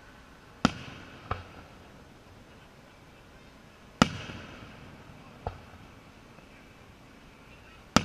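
Distant aerial firework shells bursting: three sharp bangs about four seconds apart, each followed a moment later by a fainter report.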